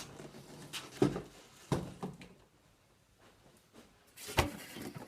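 Three sharp knocks with light rustling and scraping between them, the loudest about four seconds in: handling noise.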